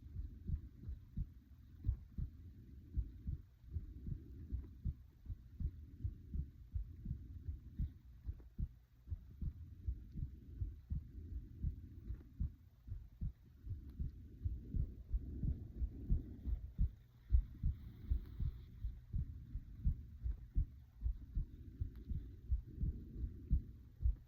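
A person's heartbeat heard close up: steady, rhythmic low double thumps, with soft swells of breathing rising and falling underneath.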